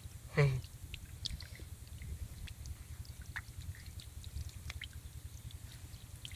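Soft, scattered wet clicks and ticks as hands pick small fish off wet mud, over a low steady rumble. A short vocal sound comes about half a second in.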